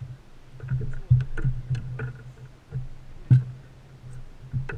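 Scattered knocks and thumps from handling a landed fish and landing net on a bass boat's deck, over a steady low hum. Two louder thumps come about one second and three seconds in.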